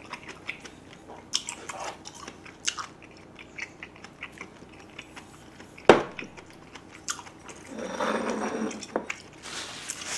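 Close mouth sounds of eating, chewing with small wet clicks. About six seconds in comes one sharp clack, tableware knocking on the wooden table. Near the end a paper tissue rustles for about a second.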